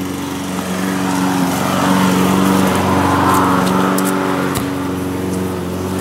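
A small engine runs steadily in the background. About four and a half seconds in, a soccer ball is kicked once with a short thump.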